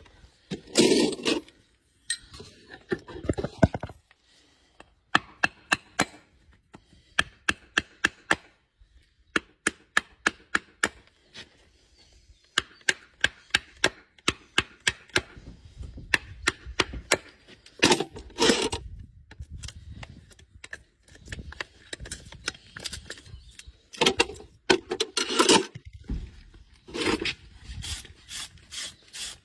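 Farrier's hand tools working on a horse's shod hoof to take the horseshoe off: runs of sharp taps, about two a second, with louder scraping and prying noises in between as the shoe is worked loose.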